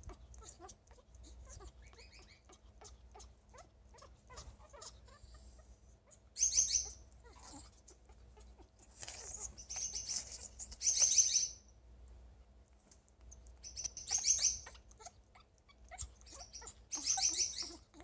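African grey parrot making short, rapidly pulsing high-pitched sounds in about six bursts, with soft clicks in between. This is the sound her owner says she makes when she is happy and wants affection.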